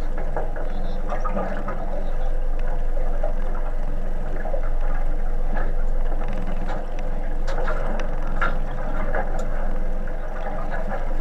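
Sea water sloshing against a small fishing boat's hull over a steady low hum, with a few sharp clicks scattered through.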